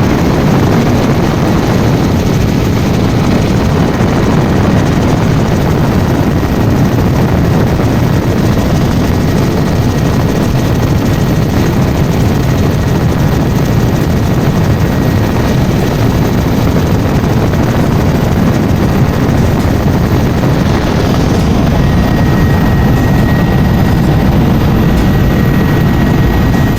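Helicopter in flight: loud, steady, unbroken rotor and engine noise, with a faint thin whine joining in near the end.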